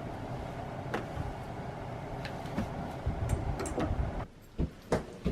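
Steady low background hum with a few scattered light clicks and knocks; about four seconds in it drops away, and a few soft thumps follow near the end.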